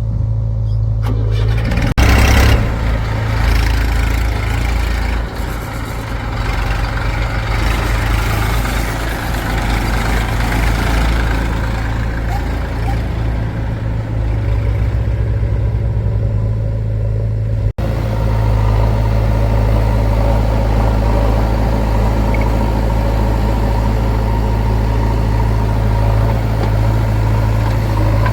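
Diesel engines of a backhoe loader and tractors running steadily, with a brief loud burst of noise about two seconds in and a sudden break a little past halfway.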